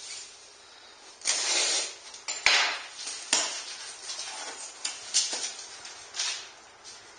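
Cardboard shipping box being opened by hand: a scraping tear a little over a second in, then a string of sharp clicks and knocks as the box is worked open.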